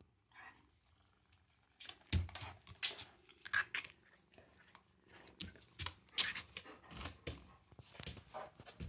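German Shepherd mouthing and nuzzling a ginger kitten: irregular short mouth clicks and scuffling sounds, with the loudest ones about two seconds in and again near the middle.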